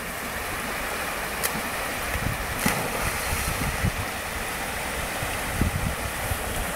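Swollen, fast-flowing river rushing in a steady hiss, with wind buffeting the microphone in low gusts and two brief clicks, about a second and a half and two and a half seconds in.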